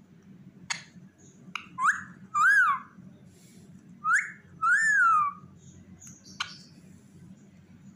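Rubber squeaky toy squeezed and let go twice: each time a short rising squeak, then a longer squeak that rises and falls. A couple of sharp clicks come from around it.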